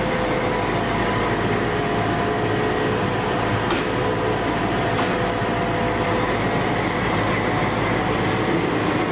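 FS D345 diesel-electric locomotive standing and idling: a steady engine hum with a faint even whine. Two short clicks come near the middle, about a second apart.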